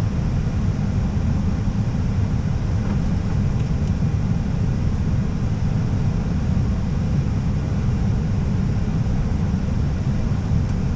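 Steady low rumble of air and engine noise on the flight deck of an Airbus A320 in flight on approach.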